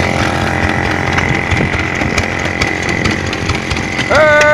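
Electric fire alarm bell ringing continuously, with a steady high tone over a dense rattling ring. A voice shouts near the end.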